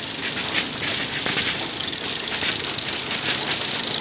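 Date-grading conveyor machine running, with a steady, dense rattle and clatter of dates moving along the metal conveyor and chutes.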